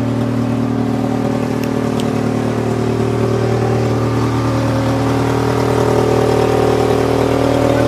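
A large vehicle engine running steadily with a deep, even hum, growing slightly louder over the last few seconds. Two faint ticks come about a second and a half to two seconds in.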